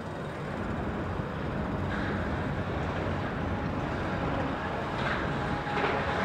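Heavy demolition excavators running: a steady diesel engine rumble, with swells of harsher, rushing machine noise about two seconds in and again near the end.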